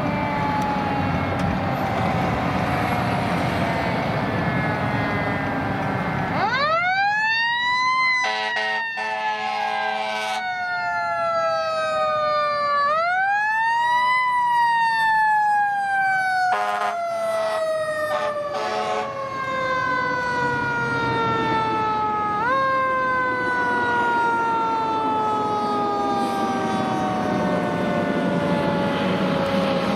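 Fire truck's mechanical siren winding up sharply twice, each time coasting down in a long slow falling wail. It is punctuated by two bursts of air horn blasts, over the low rumble of the truck's engine.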